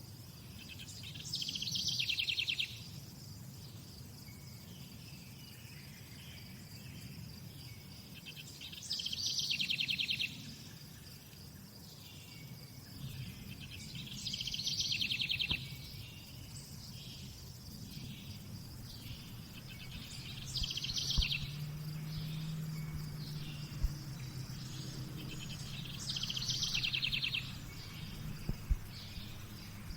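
Nature ambience: a songbird sings the same short phrase five times, about every six seconds, over a steady high insect trill and a low background rumble.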